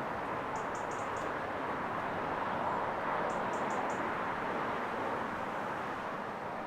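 Steady hiss of road traffic in a town, swelling a little in the middle as a car passes. A small bird gives two quick runs of four high chirps, about half a second in and again about three seconds in.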